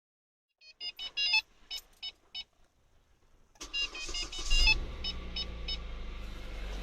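Kia Picanto's dashboard chime beeps several times as the ignition is switched on. The 1.2-litre four-cylinder G4LA engine then cranks, catches a few seconds in and settles into a steady idle, with more chimes sounding over the start. The owner has posted this engine for an unexplained knock that has appeared.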